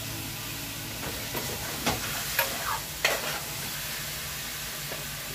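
Meat and garlic sizzling in a frying pan as it is stirred. The spoon scrapes and knocks against the metal pan a few times between about one and three seconds in.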